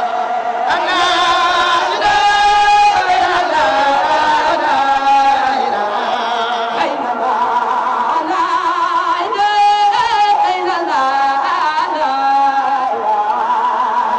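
Chanted singing as a soundtrack, voices holding long, wavering notes that shift in pitch every second or so.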